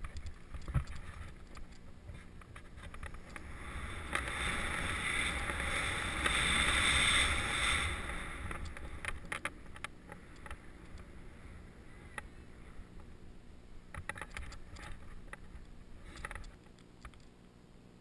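Skis hissing through deep powder snow on a downhill run, with wind rumbling on the microphone and scattered light knocks. The hiss swells about four seconds in and fades after about eight.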